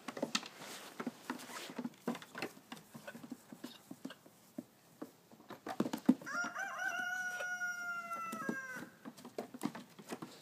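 A rooster crowing once, a long call of nearly three seconds starting about six seconds in, held and sagging slightly in pitch at the end. Scattered taps and scuffles come before and around it.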